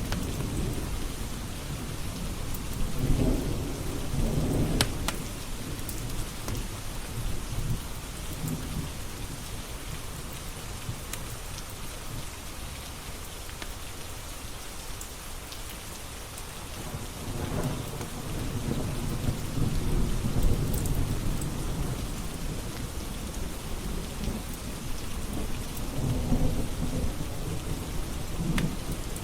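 Steady rain with low rolls of thunder that swell a few seconds in and again through the second half. A few sharp pops sit over the top.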